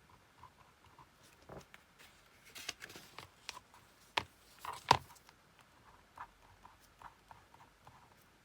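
Scattered soft clicks and taps, with two sharper clicks about four and five seconds in, the second the loudest.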